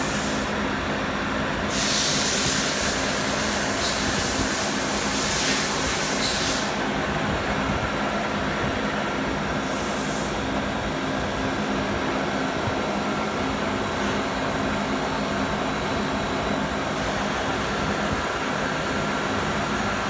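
Steady machinery hum with a low drone throughout. A loud hiss, like blown compressed air, comes in about two seconds in and lasts about four seconds, with a second short hiss about ten seconds in.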